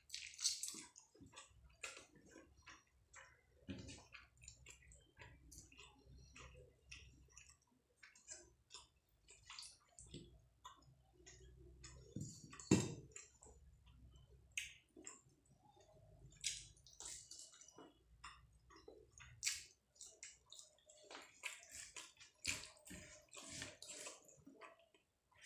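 Close-up eating sounds: wet chewing and lip smacks, and fingers squishing rice together with fish curry and dal on a plate. They make an irregular run of small clicks, with one louder knock about halfway through.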